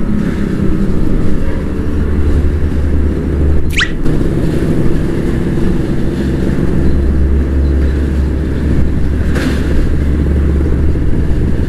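Kawasaki Ninja RR 150's two-stroke single-cylinder engine running steadily under way through its stock exhaust, with road noise. A short rising chirp comes about four seconds in.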